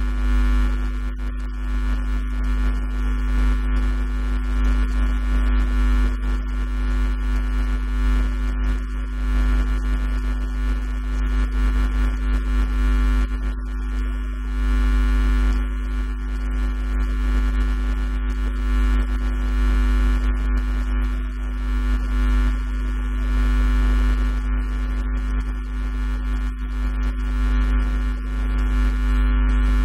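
Loud, steady electrical mains hum: a buzz of many fixed tones over a low rumble, with no change through the stretch.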